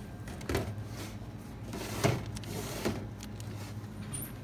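A steady low hum with three short knocks or rustles, about half a second, two seconds and three seconds in; the one at two seconds is the loudest.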